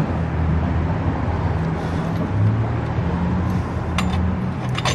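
Steady low hum of motor traffic going by, its pitch shifting partway through, with a couple of sharp clicks near the end.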